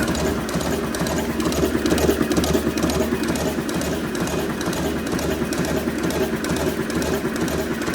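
A machine running steadily with a fast, regular mechanical clatter.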